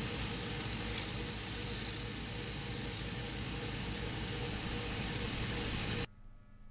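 Shoe-repair finishing machine running, its motor humming and its spinning wheels and brushes hissing as a boot's sole is held against them. The sound stops abruptly about six seconds in.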